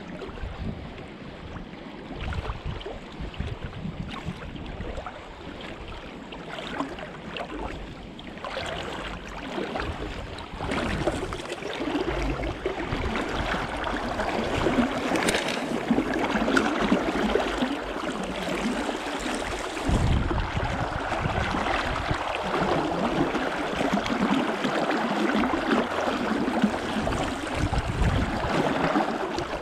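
River water rushing, growing louder about ten seconds in, with wind buffeting the microphone in low gusts.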